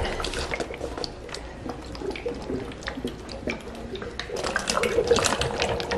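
Water gurgling and splashing as it drains through a tornado connector from one upturned plastic bottle into the other, while air bubbles up through it in a swirling vortex. The gurgling grows busier and louder in the last couple of seconds.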